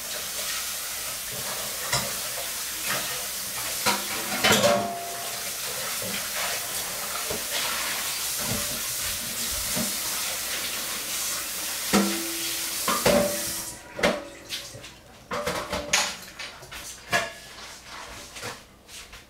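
Crepe sizzling in a nonstick frying pan, a steady hiss that cuts off suddenly about fourteen seconds in. Dishes and utensils clink a few times, more often near the end.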